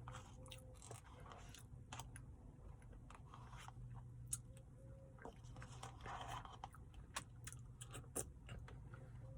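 Close chewing and mouth sounds of someone eating a Dairy Queen Blizzard, with many scattered small clicks and smacks.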